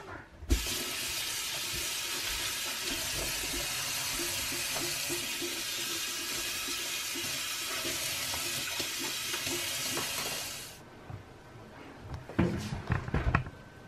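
Water running from a kitchen tap into a stainless steel sink and splashing as the sink and sponge are rinsed. It comes on sharply about half a second in and shuts off about three seconds before the end, followed by a few short knocks.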